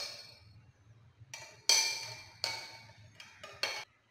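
Metal spoon clinking against the inside of a ceramic mug while stirring hot milk and cream: about half a dozen short ringing clinks at uneven intervals, the loudest a little under two seconds in.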